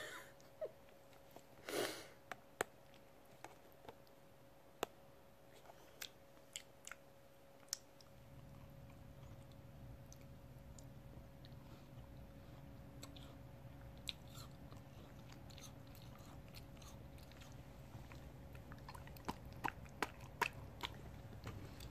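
Elderly miniature schnauzer licking and smacking at plain yogurt. Faint, scattered wet clicks of tongue and lips, growing thicker near the end as it takes yogurt from a spoon.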